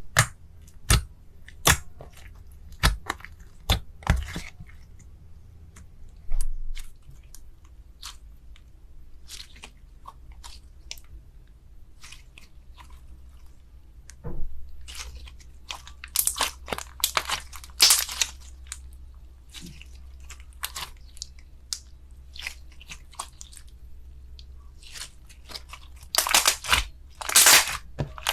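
Crunchy slime being squeezed and pressed by hand, giving sharp crackles and crunches: scattered single cracks at first, then dense runs of crackling about halfway through and again near the end.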